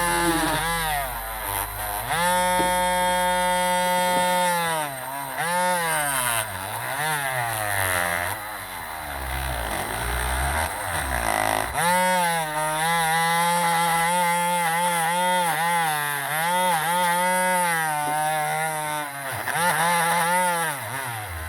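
Electric drill spinning a wire brush against a corroded die-cast alloy casting to scour off surface corrosion. The motor's whine dips and recovers again and again as the brush is pressed into the metal and eased off.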